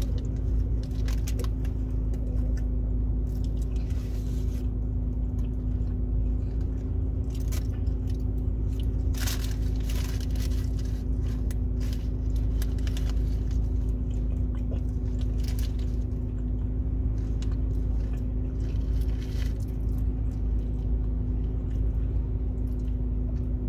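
A person biting into and chewing a McDouble cheeseburger, with short crinkles of its paper wrapper, over a steady low hum inside a car cabin.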